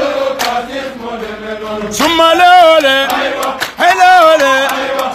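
Music: a chanted song with male voices, a new sung phrase coming in about two seconds in.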